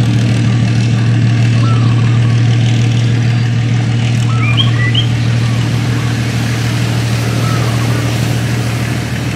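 Small boat engine running steadily at a constant low speed, a loud even hum with no revving.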